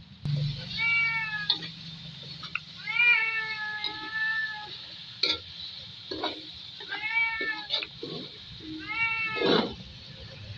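A cat meowing repeatedly, four calls with the second one drawn out, over short scrapes and knocks of a metal spatula against the wok.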